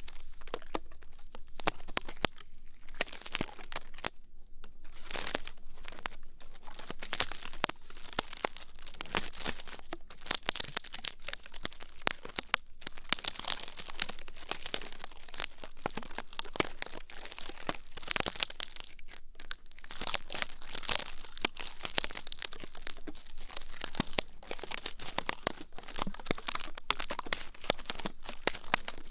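Close-up ASMR ear-cleaning sounds: continuous crackling, scratching and rustling made of many fast, fine clicks, with no voice.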